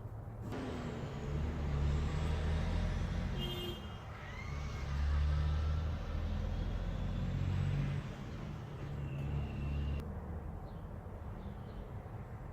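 Low engine rumble of a motor vehicle, swelling and easing, that fades out about ten seconds in.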